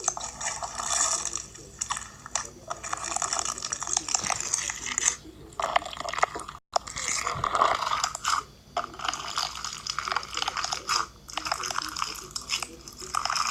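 Fishbowl slime, clear slime packed with small plastic beads, being squeezed and kneaded by hand: a dense, continuous crunching and crackling in uneven rushes with short pauses, cutting out for an instant about halfway through.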